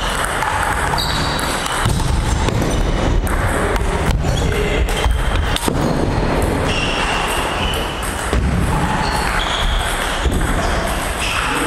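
Table tennis ball clicking off bats and the table, a few sharp knocks over a loud, steady low background noise in a large hall.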